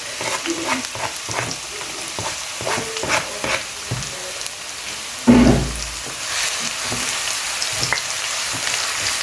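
Chopped onions and garlic sizzling as they fry in hot vegetable oil in a pot, with a utensil clicking and scraping against it as they are stirred. A loud knock about five seconds in.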